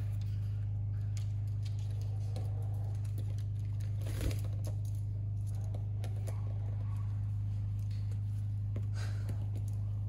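Light scattered clicks and rustles from caique parrots climbing and pulling at a hanging rope toy with a plastic ball, with one slightly louder knock about four seconds in, over a steady low hum.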